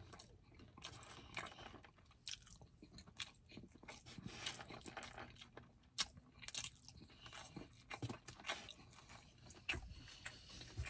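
Close-miked chewing and mouth sounds of a person eating rice and chicken, with scattered small clicks and scrapes of a plastic fork against a foam takeout container.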